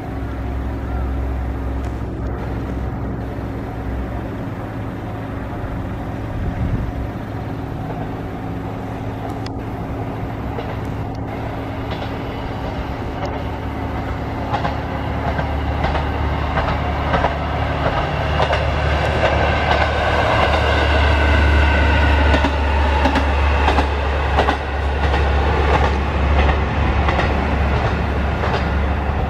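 Single-car diesel railcar running past on the line: a low engine drone that builds over the first two-thirds, peaks, then eases slightly, with a whining tone in its upper range near the peak and a few clicks from the wheels on the rails.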